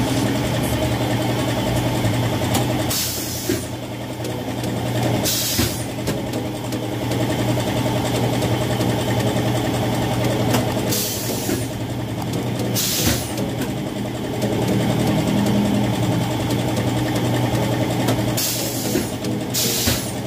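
Tarpaulin press machine's motor running with a steady hum, broken about six times by short bursts of hiss.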